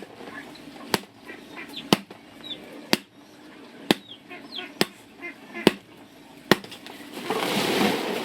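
Steady chopping, one sharp stroke about every second, with chickens clucking softly between the strokes. Near the end a louder rush of rustling noise comes in.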